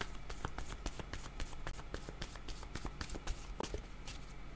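A deck of oracle cards shuffled between the hands: a quick, irregular run of light card clicks and taps.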